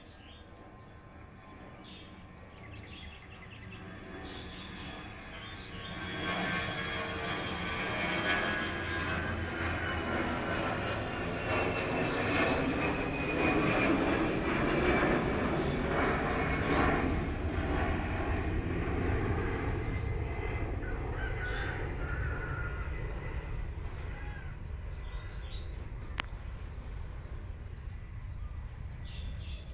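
A passing engine: a drone that builds over several seconds, peaks midway and slowly fades, with a whine that falls in pitch as it goes by.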